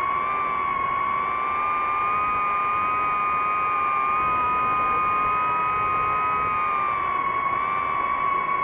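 DJI FPV drone's motors and propellers whining steadily in flight, the pitch wavering slightly with throttle, rising a little midway and easing down near the end.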